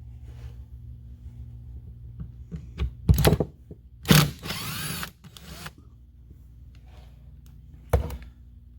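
Metal parts of a Cornwell 1/2-inch air impact wrench knocking and clanking as its air motor is taken apart, with a loud knock about three seconds in, a short whirring burst just after four seconds and another sharp knock near the end.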